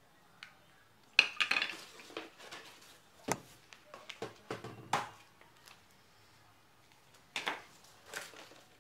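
Unpacking: hard plastic cordless-vacuum parts knocking and clicking against each other and the cardboard box, with short rustles of cardboard and paper. The knocks come singly at irregular intervals, with quiet gaps between.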